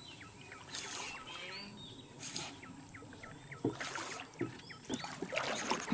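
A hooked toman (giant snakehead) splashing and thrashing at the surface in short bursts as it is reeled toward the boat, over a continuous run of quick, high falling chirps.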